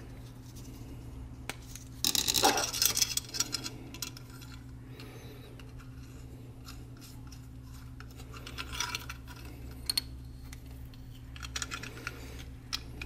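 Small brass air fittings clinking and scraping against a metal air regulator as they are handled and threaded on by hand, in a few short clusters of clicks, the busiest about two seconds in. A steady low hum runs underneath.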